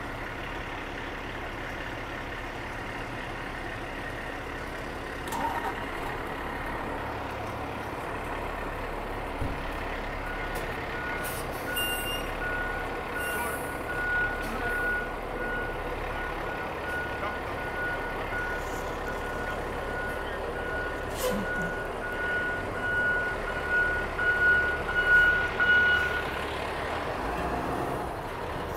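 Fire truck's diesel engine running steadily, with its back-up alarm beeping in a steady pulse from about ten seconds in until a couple of seconds before the end.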